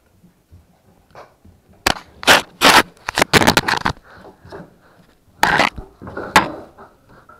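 Puppies chewing on an off-brand action camera right at its microphone: loud, irregular bursts of crunching and scraping from teeth on the camera, in uneven clusters with short scratchy gaps between.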